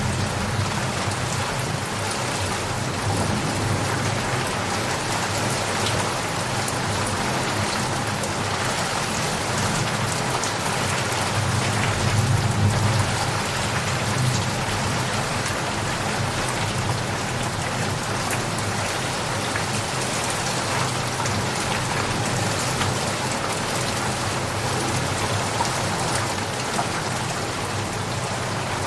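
Steady rain falling, a dense, even patter of drops, with a low rumble of thunder swelling about twelve seconds in.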